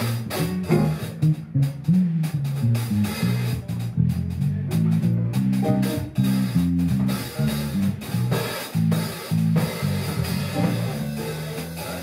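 Small jazz band playing a bebop blues live: Gibson ES-350 hollow-body electric guitar, electric bass guitar and drums. The moving bass notes are the loudest part.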